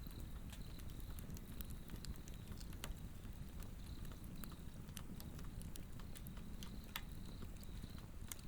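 Swedish torch log fire crackling, with scattered sharp pops over a steady low rumble of the flame. Insects chirp faintly at a high pitch behind it.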